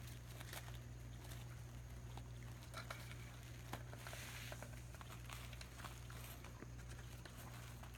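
Faint patter and crinkle of kittens' paws scampering over plastic-backed puppy pads, with scattered light taps, over a steady low hum.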